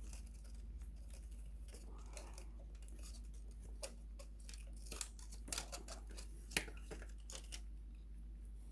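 Scattered light clicks and rustles of hands fitting cable connectors and plastic parts inside a sewing machine, more frequent in the second half, over a steady low hum.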